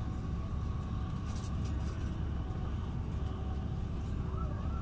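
Passenger train running at speed, heard from inside the carriage: a steady low rumble of wheels on the track with a faint steady whine above it.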